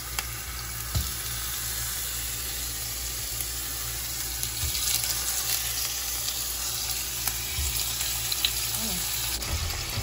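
Sausage pieces sizzling in hot olive oil in a nonstick frying pan, a steady frying hiss, with a few light knocks.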